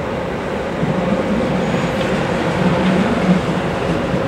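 Electric locomotive-hauled double-deck regional train moving out along the platform track. It makes a steady rumble with a wavering low hum that comes in and grows louder about a second in.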